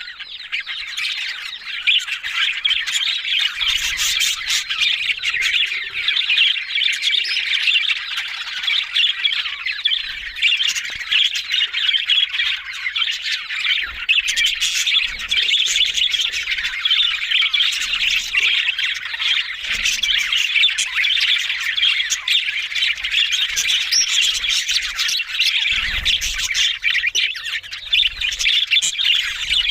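A group of budgerigars chattering without a break, a dense mix of chirps and warbles.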